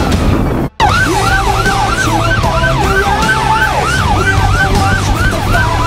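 Emergency siren in a fast yelp, sweeping up and down about three times a second over a steady low engine rumble. It starts after a brief dropout under a second in.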